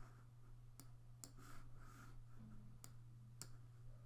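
Faint, scattered computer mouse clicks, about five spaced irregularly, over a steady low electrical hum.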